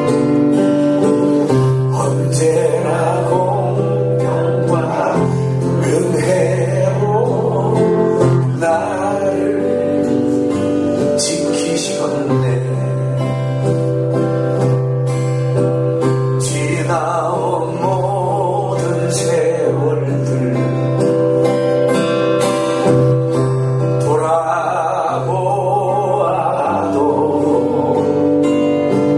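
A man singing a slow song, accompanying himself on a strummed acoustic guitar. The vocal comes in phrases over steadily ringing chords.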